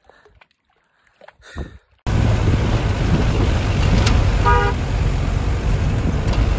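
A road vehicle heard from inside the cabin, driving a rough dirt mountain road: a loud, steady low engine and road rumble begins abruptly about two seconds in. A single short horn toot sounds about halfway through.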